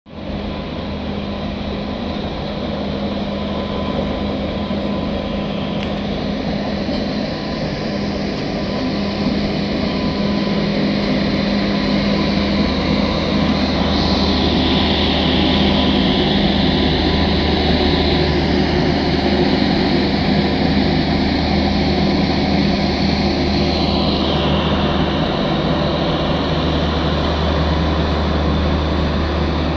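Passing trains: a steady rumble and electric hum, growing louder from about halfway as an Indian Railways WAP-7 electric locomotive and its Garib Rath coaches go past.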